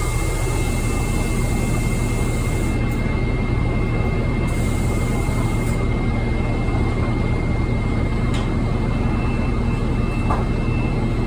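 Orion diesel city bus standing with its engine running and its cooling system noisy. It makes a steady low drone with two constant high whining tones on top, which hold unchanged throughout.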